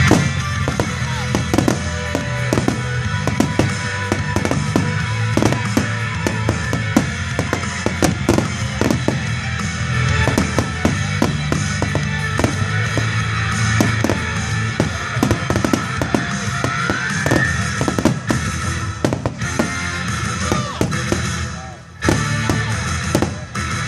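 Fireworks bursting and crackling in rapid succession, over background music. The bangs thin out briefly near the end.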